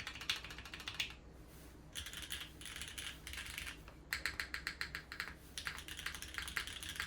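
Typing on a Geonworks F1-8X V2 custom mechanical keyboard with lubed and filmed Cherry MX Nixie linear switches (Cherry MX Black clear-tops) on an aluminium leaf-spring plate. Fast runs of keystrokes are broken by short pauses, the longest starting about a second in.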